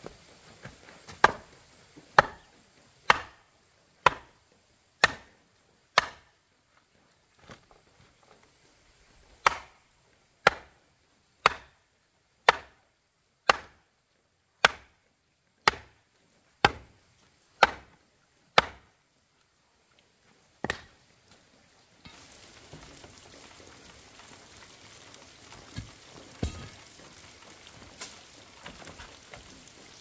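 A wooden fence post being pounded into the ground, struck hard on its top about once a second with a short pause partway through. The blows stop about 20 seconds in, and only faint outdoor background with a few light knocks follows.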